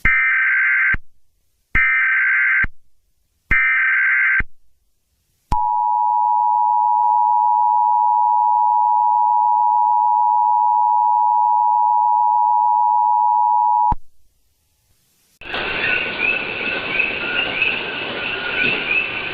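Emergency Alert System tones: three short bursts of screeching SAME header data, each about a second long, then the two-tone EAS attention signal (853 and 960 Hz together) held steady for about eight seconds and cut off sharply. After a brief pause, loud hissy audio starts near the end.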